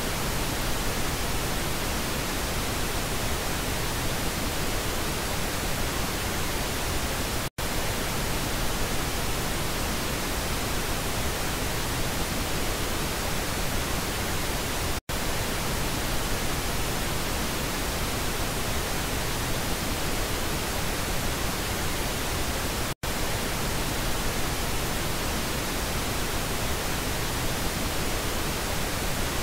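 Pink noise test signal for checking stereo speakers, a steady even hiss across the whole range. It breaks off briefly three times, about every seven and a half seconds, as it switches between the left and right channels.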